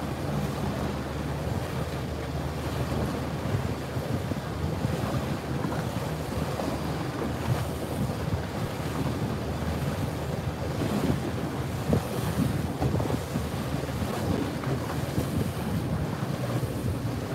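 Steady wind buffeting the microphone over the low, even hum of a small boat's engine running on open water, with water washing past.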